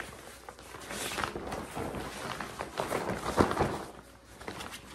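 Rustling and flapping of the backpacking cot's fabric bed as it is handled and folded in half, with the loudest rustle about three and a half seconds in.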